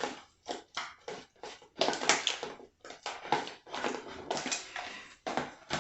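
Raw shrimp coated in cornstarch and seasoning being stirred around in a bowl: a run of short, irregular mixing strokes, about two or three a second.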